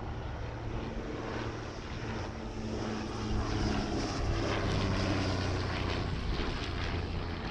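De Havilland Dragon Rapide twin-engined biplane flying past, its two six-cylinder piston engines and propellers running with a steady engine note that grows louder about three seconds in as it banks overhead.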